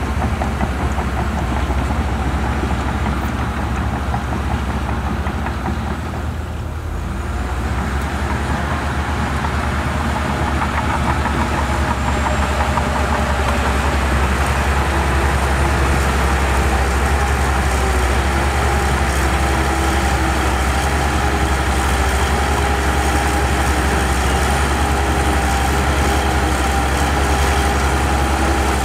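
Heavy diesel earthmoving machinery running steadily, a deep engine drone with a brief dip in loudness about a quarter of the way in and a steady whine coming up later.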